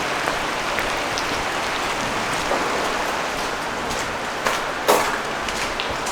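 Heavy rain falling steadily, with scattered close drops ticking nearby and one sharper knock about five seconds in.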